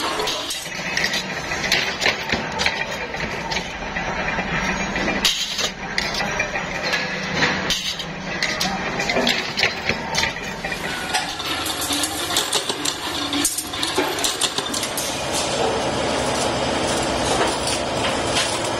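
Metal-pressing workshop noise: pressed steel filter discs clinking and clattering in quick, irregular clanks over the steady low hum of running power-press machinery.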